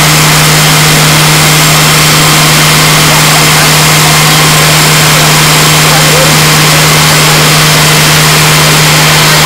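Fire engine's diesel engine running steadily close by: a loud, even drone with a constant low hum and no change in pitch.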